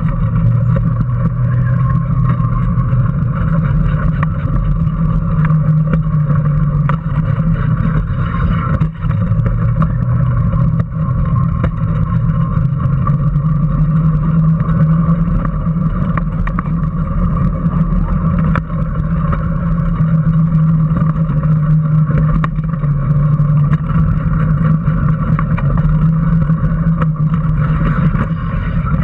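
Small electric Power Racing Series car running at speed, heard from a camera mounted on it: a steady low drone from its motor and drivetrain with road and wind noise, the pitch wavering slightly through the laps.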